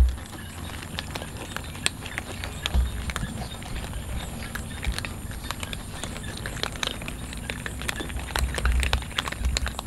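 Several cats crunching dry kibble from a metal tray: a steady, irregular patter of small crisp clicks, with a few low thumps at the start, about three seconds in and near the end.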